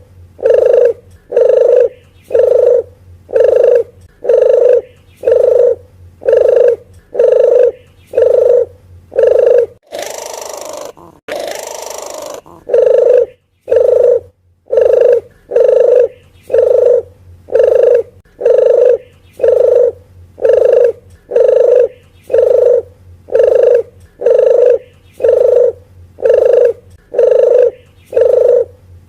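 Bird-lure recording of a red turtle dove (puter geni) calling: a low hooting note repeated at a steady pace of about one and a half a second. About ten seconds in, the calls break off for about two seconds of hissing noise, then resume at the same pace.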